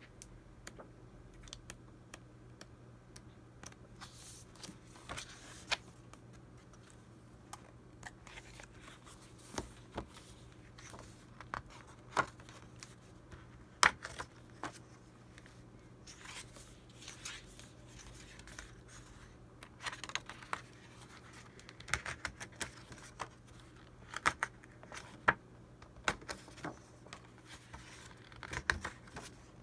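Sheets of Prima Marketing patterned scrapbook paper being leafed through and handled: irregular rustling and crinkling with scattered sharp clicks and taps, busier in the second half.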